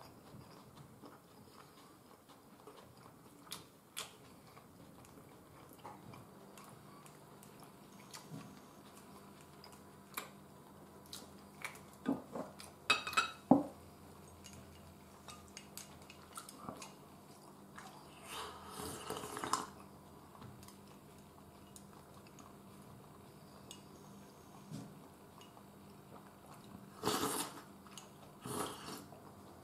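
A person eating with chopsticks: chopsticks clicking against ceramic bowls, with a few louder clinks a little before halfway, and chewing. Near the end comes a slurp from a soup cup.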